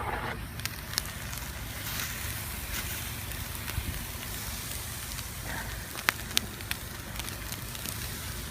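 Barbecue grill fire crackling steadily, with a few scattered sharp pops and a cluster of them about six seconds in, over a low rumble.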